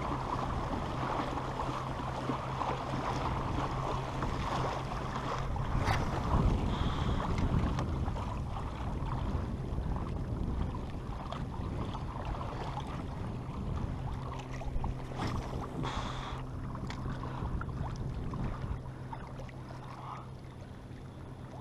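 Sea water splashing and washing along the hull of a Hobie Revo pedal kayak as it moves through open-ocean swell, with wind buffeting the microphone. It gets quieter near the end.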